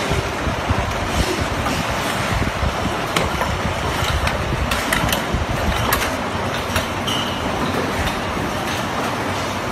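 An automated LED panel assembly line running: steady mechanical machine noise with scattered sharp clicks and knocks.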